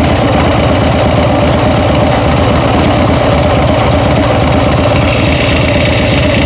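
Engine idling steadily with a ticking noise, which the owner thinks comes from the rear cylinder.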